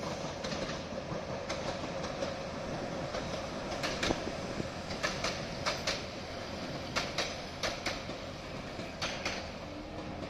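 A rake of railway oil tank wagons rolling past over a steady rumble, the wheels clacking over rail joints in quick pairs several times.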